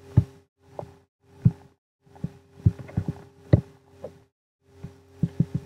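Irregular computer mouse clicks and small desk knocks picked up by the microphone, over a low electrical hum that cuts in and out with them.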